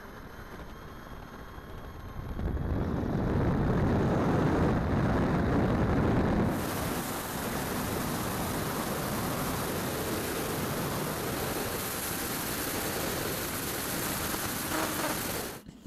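Onboard-camera sound of a ten-engine battery-powered plane in flight. It opens with a faint steady whine from the electric motors and propellers. About two seconds in, a loud rushing wind noise over the microphone takes over, becomes a brighter hiss about six seconds in, and cuts off abruptly near the end.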